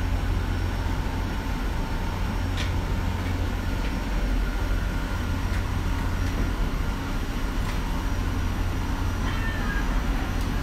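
Steady low drone of aircraft and jet-bridge machinery at an airliner's boarding door, even in level throughout, with a few faint clicks.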